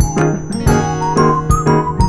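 Light, cheerful background music: struck or plucked bell-like notes over a steady bass, with a simple melody line.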